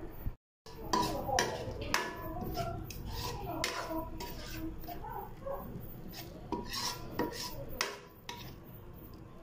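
Metal spoon stirring a thick sauce in a metal pan, scraping and knocking against the bottom and sides in irregular strokes. The sound cuts out briefly near the start.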